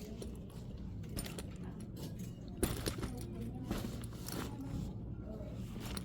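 Store background: a steady low hum with several sharp clicks and clinks, the loudest about two and a half seconds in.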